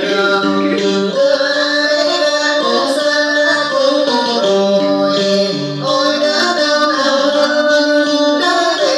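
Music: a singing voice over accompanying instruments.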